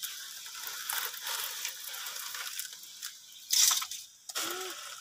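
Dry rice vermicelli rustling and crackling as handfuls are pulled apart and dropped into a pot of boiling water, with a louder crackle about three and a half seconds in.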